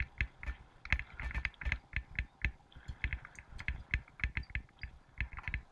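Bicycle rattling and clattering over a bumpy dirt track: irregular sharp clicks and knocks, several a second.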